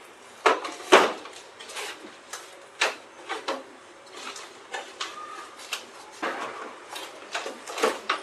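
Irregular knocks and clicks of hard objects being handled, about a dozen spread unevenly, the loudest about a second in.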